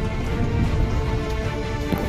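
Music with many held tones over a heavy low end.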